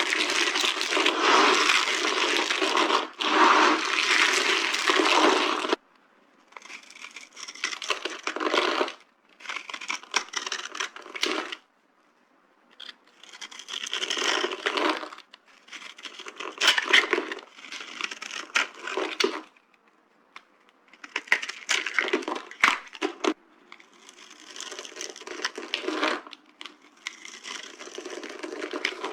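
Dry soap being crushed and crumbled, crunching and crackling with sharp snaps. The first six seconds or so are one dense crunching spell; after that it comes in separate bursts every couple of seconds.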